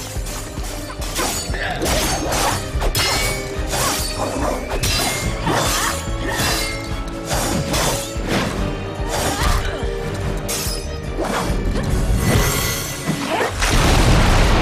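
Fight-scene soundtrack from an animated series: action music laid over a rapid run of clashing and smashing impact effects from a sword fight. Near the end it swells into a loud crashing burst, then cuts off suddenly.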